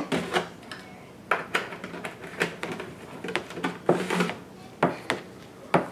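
A spoon knocking and scraping against a plastic mixing bowl while stirring milk into cheesecake batter, in a string of irregular clacks a few each second.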